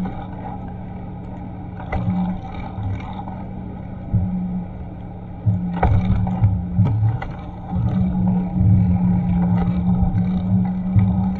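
Steady low rumble of wind and road noise on a bicycle-mounted action camera while riding, swelling and fading, heavier in the second half. A few short knocks come from bumps, the clearest about six seconds in.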